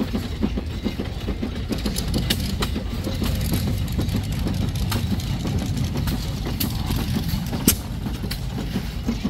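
Small antique stationary gas engine running a belt-driven corn sheller: a steady low rumble with sharp pops or knocks at irregular intervals.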